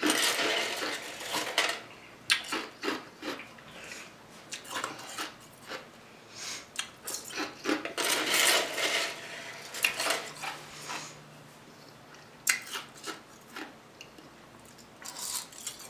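Eating and table sounds: scattered clicks and clinks of food and tableware being handled, with short rustling or crunching noises near the start and a longer one about eight seconds in.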